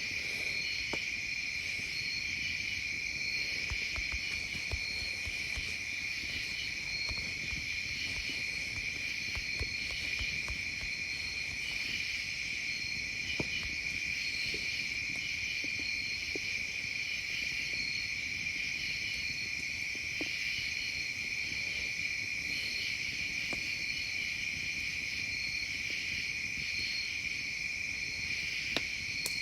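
Chorus of night insects such as crickets, a steady high-pitched trilling with an evenly pulsing higher band on top, and a few faint ticks here and there.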